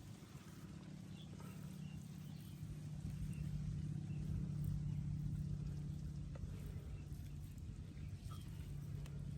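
A small motor running steadily with a low hum, growing louder over the first few seconds and then holding.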